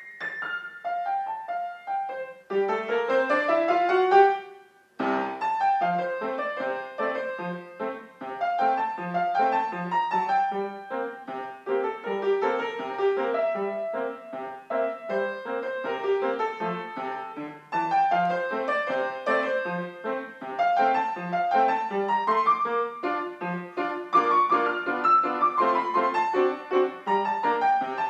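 Upright piano played solo: a quick rising run of notes climbs to the loudest moment about four seconds in and breaks off briefly, then a steady flowing passage of notes carries on.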